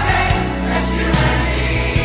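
Background music: a pop ballad with a choir singing over a steady drum beat.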